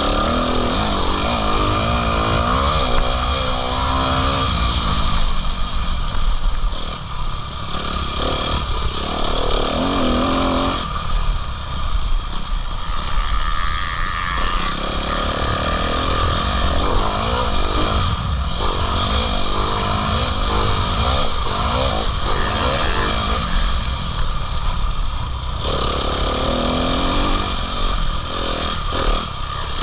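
Motocross bikes riding, their engines revving up and down; several engine notes rise and fall over one another throughout.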